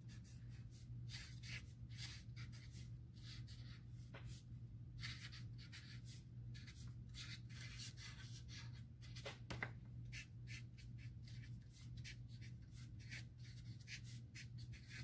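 Dry-erase marker writing, its felt tip giving quick, irregular squeaky scratches as the letters are drawn, faint over a steady low hum.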